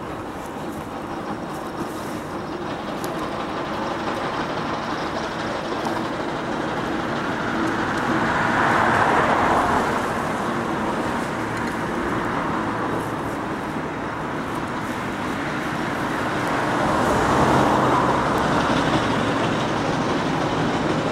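Passing road traffic: two cars go by, their tyre and engine noise swelling and fading, once about halfway through and again near the end. A steady low mechanical rumble runs underneath, from the 1913 Aveling & Porter 10-ton steam roller labouring up the hill.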